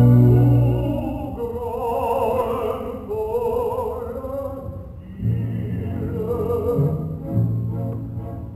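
Orchestra and opera tenor: a loud low sustained chord, then two long sung phrases with wide vibrato over a quiet accompaniment, then low strings (cellos and double basses) return with repeated strokes.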